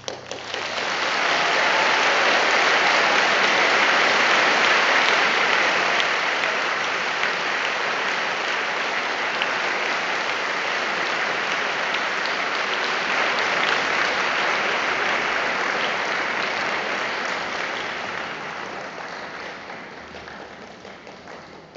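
Audience applauding in a large concert hall: the applause breaks out at once, swells within a couple of seconds, holds steady, then slowly thins out over the last few seconds.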